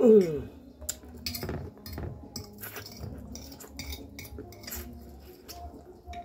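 Metal fork clinking and scraping against a glass plate in scattered, irregular clicks. Right at the start a brief, loud sound drops steeply in pitch.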